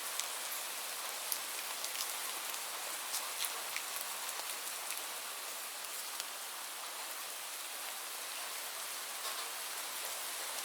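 Steady rainfall: an even hiss of rain with scattered sharper drops ticking on a surface.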